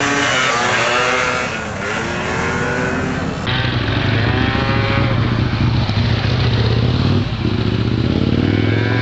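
Motor scooter engine revving, its pitch rising and falling. The sound changes abruptly about three and a half seconds in, then settles into a steadier low engine note.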